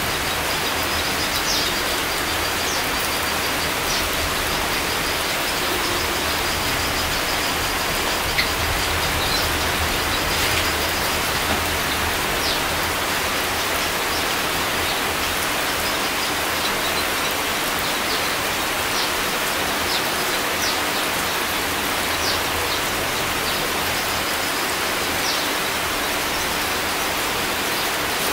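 Steady rain falling on tree leaves: an even hiss with no let-up, with faint short high chirps now and then.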